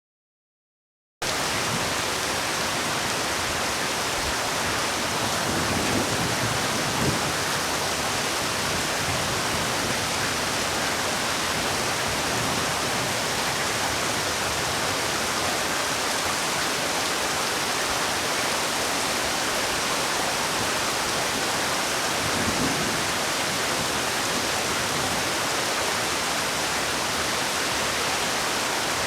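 Heavy rain falling as a steady, dense hiss. It starts abruptly about a second in, after a brief silence, and swells slightly twice.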